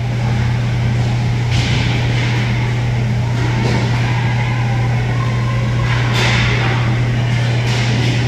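Inline hockey play on a plastic sport-tile rink: a steady low hum underneath, with a few sharp clacks and scrapes from sticks, puck and skate wheels on the tiles, one about a second and a half in and a louder stretch around six seconds in.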